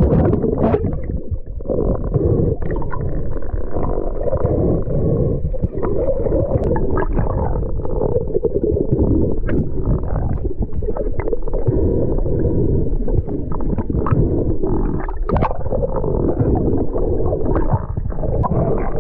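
Muffled underwater rumble and gurgling of water moving past a camera in its waterproof housing, with scattered short clicks and knocks.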